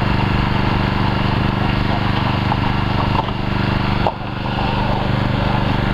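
Small petrol engine of a hydraulic rescue-tool power unit running steadily at speed, with a brief dip about four seconds in.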